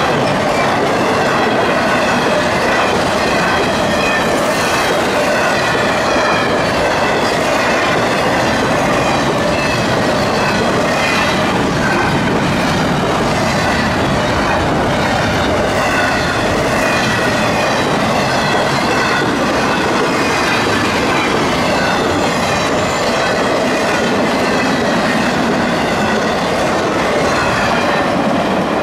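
CSX double-stack intermodal train rolling past, its mostly empty well cars giving a steady rumble and clatter of wheels over the rail, with thin wavering squeals from the wheels throughout.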